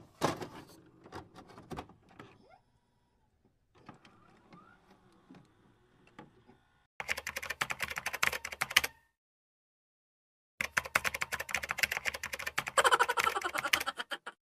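Typing sound effect: two runs of rapid key clicks, the second longer, separated by about a second and a half of silence, with sparser, fainter clicks in the first two seconds.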